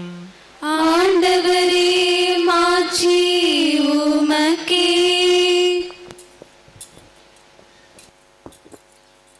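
A woman's voice sings a short chanted liturgical response on long held notes for about five seconds, the sung reply to the announcement of the Gospel. It then stops, leaving near quiet with a few faint clicks.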